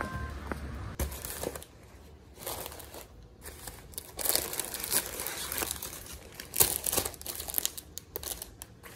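Rustling and crinkling as a thin fabric shopping bag is opened and a plastic-wrapped bunch of spinach is pulled out of it, in irregular handling noises.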